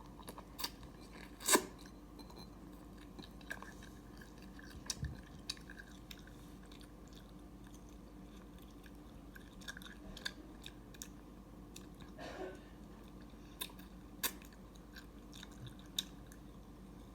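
Close-miked chewing of edamame: scattered soft crunches and crisp clicks with quiet gaps between them, the loudest a sharp snap about a second and a half in.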